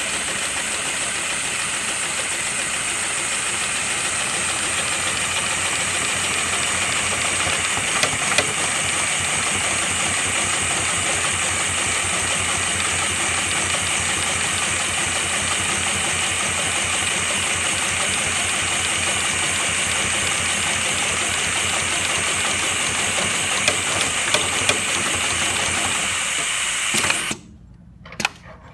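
Heavy-duty Mitsubishi industrial sewing machine stitching through thick rope, running steadily at speed with a fast stitch rhythm and a few sharp clicks, then stopping abruptly near the end.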